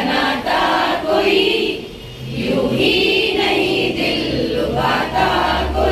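A group of women singing a song together, holding long notes with short breaks between phrases.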